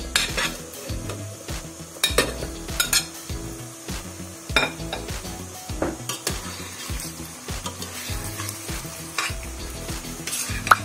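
Chorizo and pieces of ham bone sizzling as they go into hot olive oil with onion in a stainless steel pot, with several sharp clinks and scrapes of a metal spoon against the pot as it stirs.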